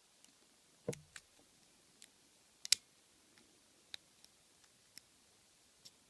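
Lock pick and tension tool working in the keyway of a vintage brass padlock: a few sharp, irregular metallic clicks as the pins are set, the loudest about two and a half seconds in, with a duller knock about a second in.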